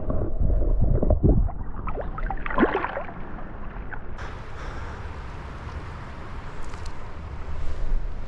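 Water splashing and sloshing as a hand-held trout is lowered back into the river and released, with low rumbling handling noise for the first second or so. This settles into the steady rush of flowing river water.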